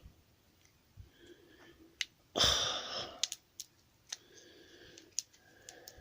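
Small plastic wrapper around a toy figure being picked and pulled at by fingers: scattered sharp clicks and crinkles, with one louder hiss-like burst lasting about half a second, some two and a half seconds in.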